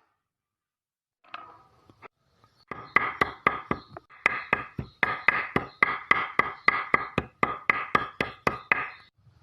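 A quick, steady run of sharp knocks, about four a second, lasting some six seconds, each with a short ring after it.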